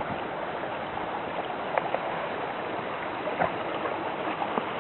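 Steady rush of flowing stream water, with a few faint clicks over it.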